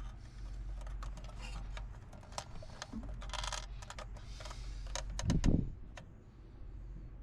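Hands rummaging through parts in a compartment: scattered clicks, rattles and rustling over a steady low hum, with a heavier bump about five seconds in.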